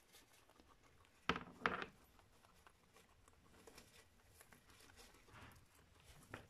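Guinea pigs eating hay: faint crunching and rustling of dry hay, with two sharper, louder rustles close together about a second and a half in.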